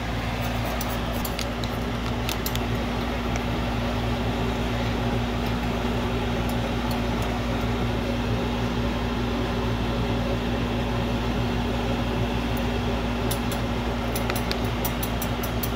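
A steady mechanical hum with several fixed low tones, such as a fan motor makes, with a few light clicks in the first couple of seconds and again near the end.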